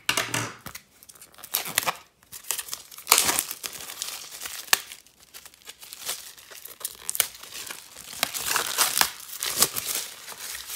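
Plastic shrink-wrap being torn and pulled off a pack of cardstock by hand: a long, irregular run of crinkling and crackling.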